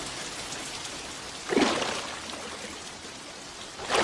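Steady rain falling, an even hiss of drops, with a louder short sound rising out of it about a second and a half in and another near the end.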